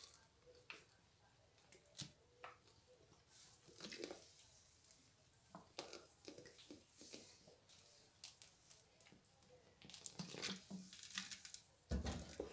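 Faint pouring of mineral water from a plastic bottle into egg batter, heard as scattered small splashes and trickles with light handling clicks of the bottle. A soft thump near the end.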